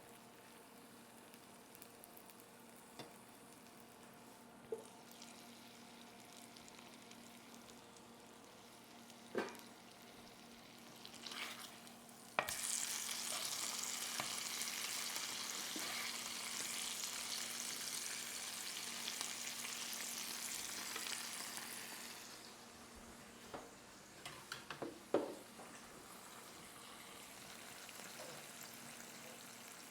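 Salmon fillets frying in a cast iron skillet. A faint sizzle with a few utensil clicks turns suddenly into a loud, hissing sizzle about twelve seconds in. The loud sizzle lasts about ten seconds, then dies back down, with more clicks and scrapes near the end.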